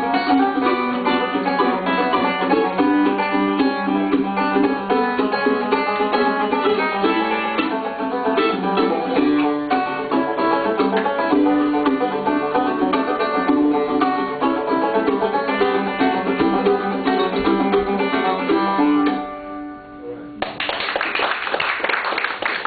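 Five-string banjo and mandolin playing a bluegrass tune live. The tune ends with a last chord ringing out, followed by applause.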